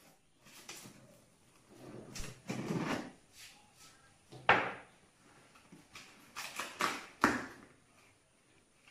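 Cardboard box being cut open and handled: scraping and rustling of the cardboard and tape, with a sharp knock midway and another a little later.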